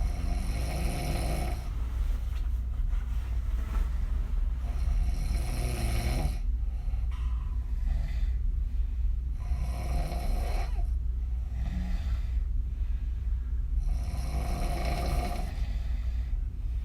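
A woman snoring through an open mouth, her lips blowing on the breaths. Four strong snoring breaths come at a slow, even pace, about one every four to five seconds, with fainter breaths between them, over a steady low hum.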